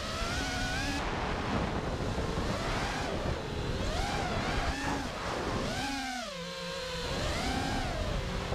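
FPV freestyle quadcopter's brushless motors and propellers whining, the pitch rising and falling with the throttle and dropping lower for about a second some six seconds in, with wind rushing over the onboard microphone.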